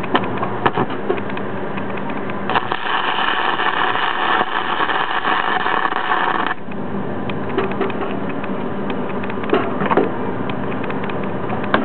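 DC stick-welding arc burning aluminum welding rod into aluminum diamond plate: the arc strikes about two and a half seconds in, runs with a loud, even hiss for about four seconds, then cuts off suddenly. A steady low hum runs underneath throughout.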